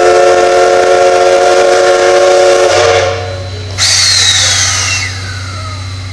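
The C58 steam locomotive's whistle sounding one long, loud, steady blast as the departure signal, cutting off about 3 seconds in. About a second later comes a sudden burst of hissing steam with a whine that falls in pitch and fades.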